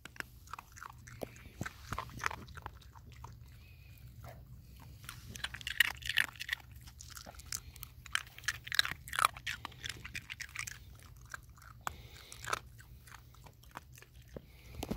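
A poodle crunching and chewing ice cubes taken from a hand: a run of sharp, irregular crunches, loudest and thickest about halfway through.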